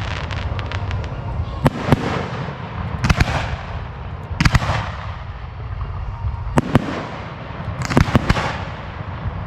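Display fireworks bursting in the air: a sharp bang every second or two, several followed by a brief crackling hiss, over a continuous low rumble of the ongoing show.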